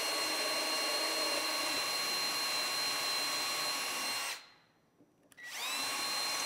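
RIDGID cordless drill running steadily while drilling a pilot hole into plywood. It stops about four and a half seconds in, then spins back up about a second later with a rising whine.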